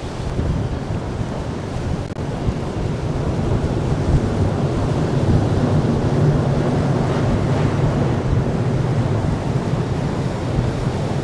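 Wind buffeting the microphone over the steady drone of a motor yacht's engine and water rushing past the hull while under way.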